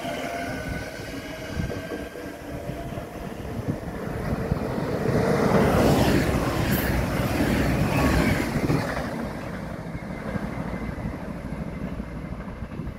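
A VIRM double-deck electric train passes through the station at speed. Its rumble and rail noise build to the loudest point about six seconds in, then fade away. In the first seconds the departing SNG Sprinter's motor hum is fading.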